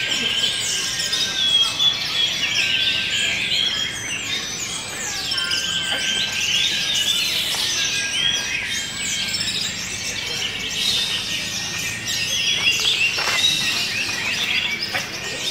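Orange-headed thrushes singing: a dense, unbroken stream of quick, high, warbling phrases from several birds at once.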